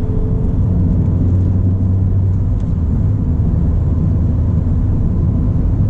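Ford Fiesta ST driving at a steady, moderate pace: a steady low engine hum with road and tyre noise on a damp road.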